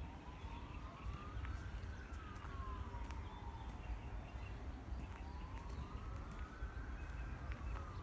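Emergency-vehicle siren in a slow wail, its pitch rising and falling twice, over a steady low rumble.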